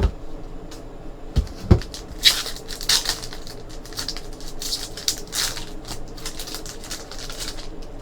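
Trading cards and pack wrappers being handled, with irregular rustling and crinkling from about two seconds in until near the end. Two soft thumps come just before it.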